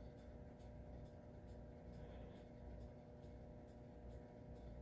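Near silence: room tone with a faint steady hum and faint, irregular high ticks a few times a second.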